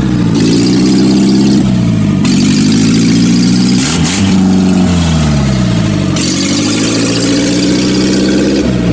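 1990 Geo Tracker's four-cylinder engine under way on a test drive after a clutch replacement, its pitch climbing and dropping with gear changes: a quick dip and climb about four seconds in, a long fall a second later, and another change near the end.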